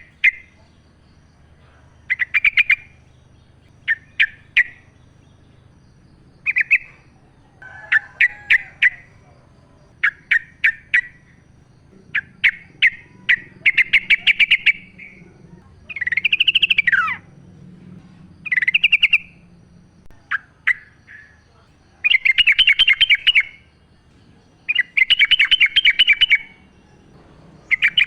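Yellow-vented bulbul singing in the wild: short, bubbly bursts of rapid chattering notes, repeated every second or two. About halfway through, one slurred note arches up and then falls.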